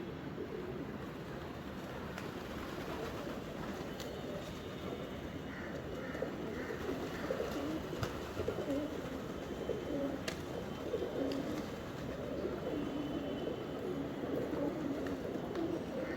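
Several pigeons cooing, their low calls overlapping continuously, with a few faint higher chirps from smaller birds.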